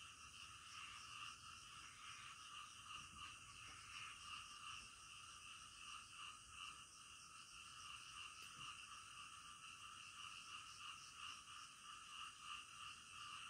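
Faint, steady night chorus of frogs, many calls overlapping into a continuous pulsing sound, with insects trilling higher up.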